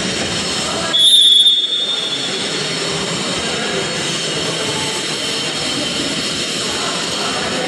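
A referee's whistle gives one short blast about a second in, over steady, dense background noise in the hall.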